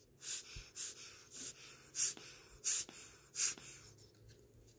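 Short puffs of air blown over an open mechanical wristwatch movement, about six in a row at an even pace of one every two-thirds of a second or so.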